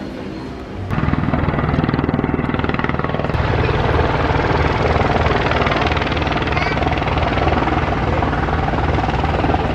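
Aerobatic biplane's piston engine and propeller running at high power on a low pass, a loud pulsing drone. It comes in suddenly about a second in and gets louder again about three seconds in.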